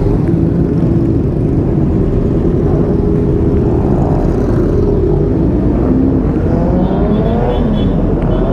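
Several motorcycle engines running together at idle, with the nearby camera bike's engine steady underneath. From about halfway through, other bikes rev up and down.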